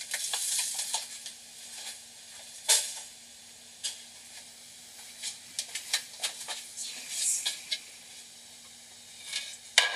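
Chia seeds poured into a metal bowl of broken taco shells and chips: a light hiss at the start, then scattered small clicks and rustles as the bowl and seeds are handled, over a faint steady hum.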